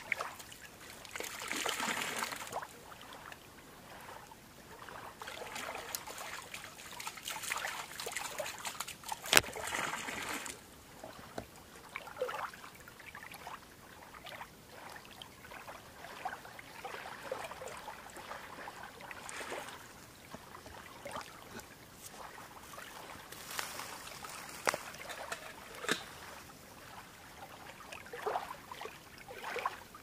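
Lake water lapping and trickling in the shallows, swelling and fading in soft surges every few seconds. A single sharp click about nine seconds in.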